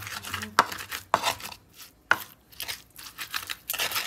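Stone pestle (ulekan) pounding and grinding chillies, shallots and tomato in an earthenware mortar (cobek) for sambal: sharp knocks of stone on clay roughly every half second, with wet scraping between them.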